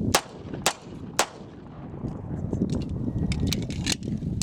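Three gunshots about half a second apart, the last one about a second and a half in, during a timed shooting drill, with wind rumbling on the microphone. A few fainter sharp ticks follow near the end.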